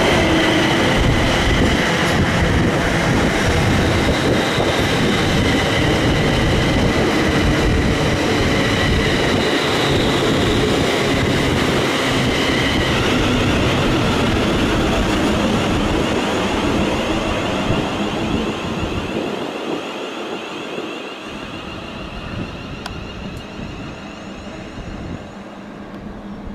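A train running through the station at close range, a loud steady rumble with a high whine over it that stops about halfway, then the noise slowly fades as the train moves away.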